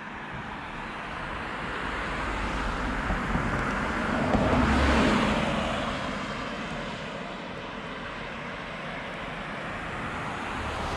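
A road vehicle driving past, its noise swelling to a peak about five seconds in and then fading away over a steady background of traffic.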